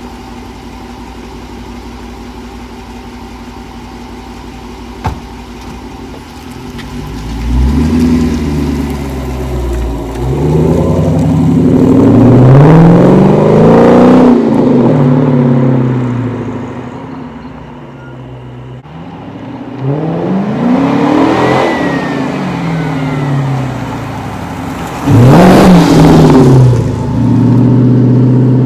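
Dodge Charger Pursuit's 5.7-litre Hemi V8 through Classic Power Stick mufflers with no resonators. It idles steadily for the first several seconds, then revs and accelerates hard in several pulls, each a rising then falling engine pitch. Near the end it settles into a steady, loud exhaust drone.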